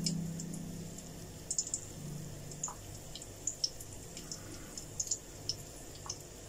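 Onion-coated chicken pakoras deep-frying in hot oil in a kadai: light, scattered crackles and pops from the oil.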